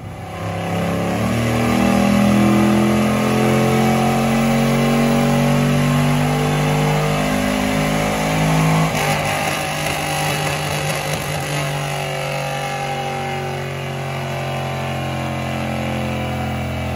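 Car engine running on a chassis dyno, held at fairly steady revs with small rises and falls. The sound changes abruptly about nine seconds in.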